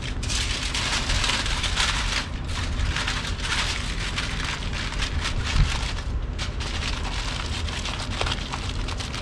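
Aluminium foil crinkling and rustling as gloved hands fold it tightly around a rack of ribs, over a steady low rumble, with a single low bump a little past halfway.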